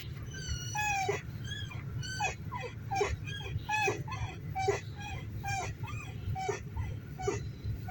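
Car suspension ball joint creaking: a run of short, high squeaks, about two a second, each sliding in pitch, as the suspension moves over a low steady rumble. It is the typical creak of a worn or dry ball joint.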